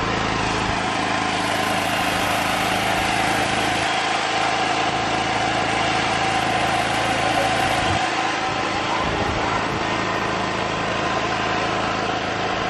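A small engine running steadily: a continuous hum with a held whine that does not change.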